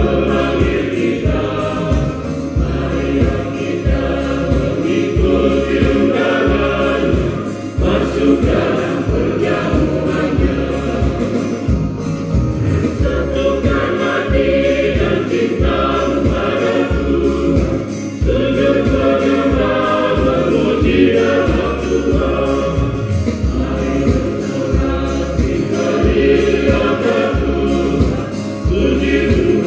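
Church choir of women and brothers singing a hymn together, over a steady low accompanying beat of about two pulses a second.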